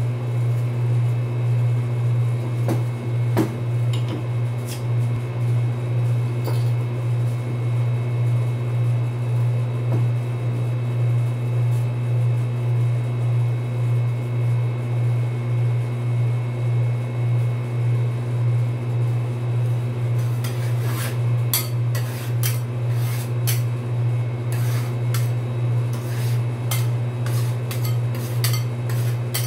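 A steady low hum from the rolled-ice-cream cold plate's refrigeration unit, with a few scattered knocks in the first third. From about two-thirds in, rapid tapping and scraping of metal spatulas on the steel cold plate as the poured beer is chopped while it freezes.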